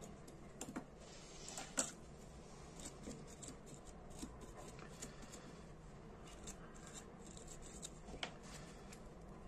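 Faint scraping and light clicking of a small metal pick against a Dunhill Dress lighter's metal parts as a hardened gas-seal O-ring is cleaned off. One sharper click comes just under two seconds in.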